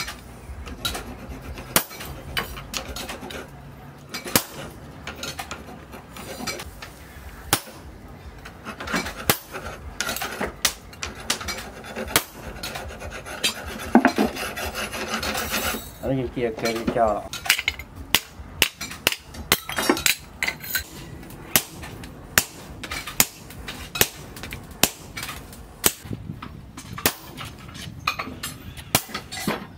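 Hammer blows on a hand-held set tool pressed onto a flat steel blank cut from a chainsaw, resting on an anvil: sharp metal-on-metal strikes at irregular intervals. About halfway through there is a stretch of scraping rubbing between the strikes.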